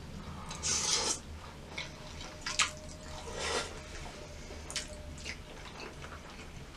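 Close-up eating sounds: a few short wet slurps and smacks of creamy pasta being eaten, the longest slurp about a second in, over a faint steady low hum.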